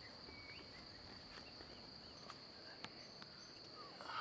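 Crickets chirring in a steady high trill, with a faint click about three seconds in.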